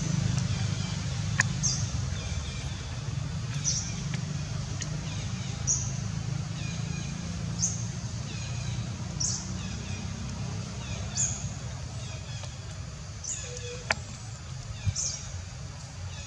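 A bird repeating a short, high, downward-sliding call about every two seconds, over a steady low rumble, with a couple of sharp clicks.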